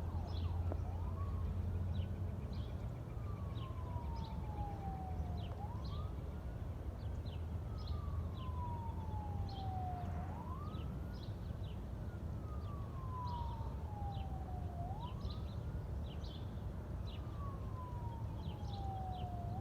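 Emergency vehicle siren on a wail: a single tone that sweeps quickly up, then slides slowly down, repeating about every five seconds. Small birds chirp over it, and there is a steady low rumble.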